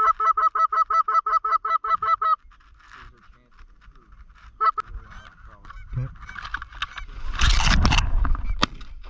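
Goose calls: a fast, even run of clucks, about seven a second for the first two seconds, then scattered honks. Near the end comes a loud burst of rustling as the layout blind is thrown open.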